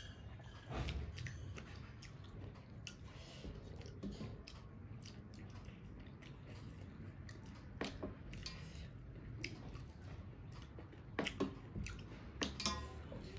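Close-up eating by hand: mouth chewing and soft squishing of rice being mixed with the fingers, with scattered sharp clicks of fingers and food on a metal plate, a few louder ones about eight seconds in and near the end.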